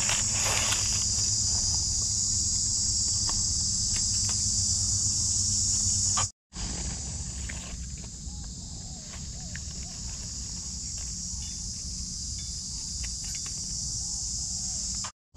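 Steady, high-pitched chorus of insects, with faint crackles and rustles of dry leaf litter being handled. The sound drops out completely for a moment twice, about six seconds in and near the end.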